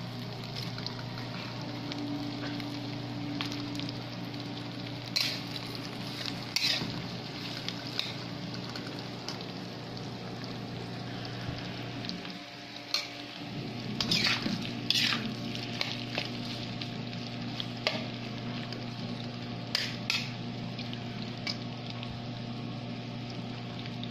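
Sliced red hotdogs and minced garlic sizzling in oil in a nonstick wok, with a spatula scraping and stirring them several times, in clusters around 5 s, 14 s and 20 s. A steady low hum runs underneath.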